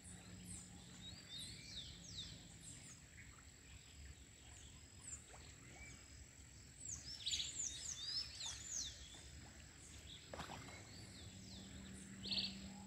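Small birds chirping and twittering faintly in short quick calls, busiest about seven to nine seconds in, with a single sharp click about ten seconds in.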